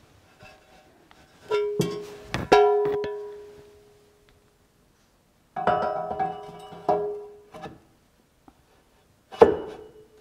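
Heavy metal top cover of a DoAll milling machine head clanking as it is set down and worked into place. It comes in three bunches of knocks, the loudest about two and a half seconds in, and each knock rings with a few clear tones that fade over about a second.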